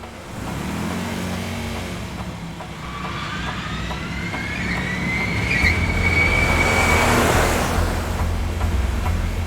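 A vehicle engine revving up, with a whine that rises in pitch over several seconds and a rushing swell near the end, over a steady low rumble.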